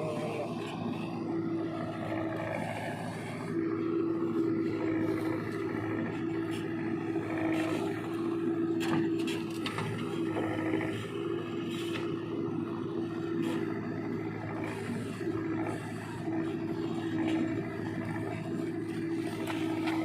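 Diesel engine of a JCB 3DX backhoe loader running steadily while it digs and loads mud. A higher tone breaks off and comes back several times, and there are scattered knocks and scrapes.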